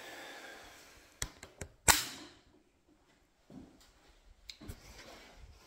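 A few sharp clicks and knocks, the loudest about two seconds in, with two lighter ones near the end.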